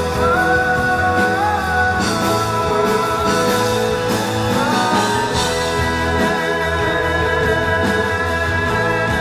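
Rock band playing live, with guitar and a voice holding long notes that bend in pitch.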